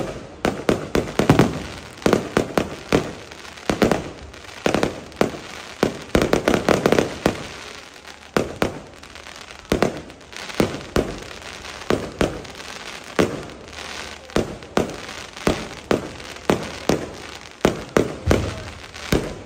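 Fireworks going off: an irregular, rapid run of sharp bangs, several a second, without a break.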